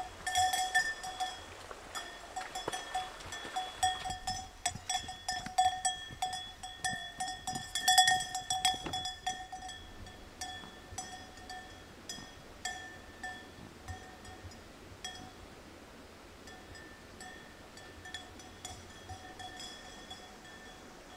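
A livestock neck bell clanking irregularly as a grazing animal moves. It is loudest over the first ten seconds or so, then fades to occasional faint clanks.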